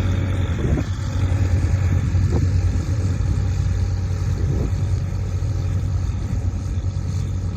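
Ford 3600 tractor's three-cylinder engine running steadily under load, driving a snow blower.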